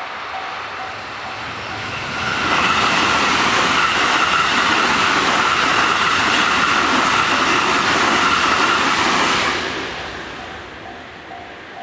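JR West electric commuter train passing over a level crossing. Its noise rises about two seconds in, holds loud with a steady whine for some seven seconds, then fades. The level crossing's warning bell rings in an even, repeating pattern under it and is heard clearly again near the end.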